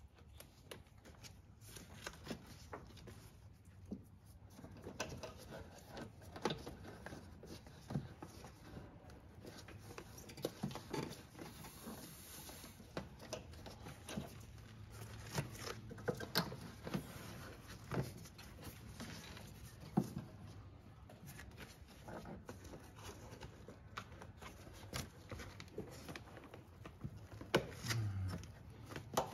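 Old foam engine sound-insulation pad being peeled and torn off its sticky adhesive by gloved hands: quiet, irregular crackles, rustles and small scrapes, over a faint steady low hum.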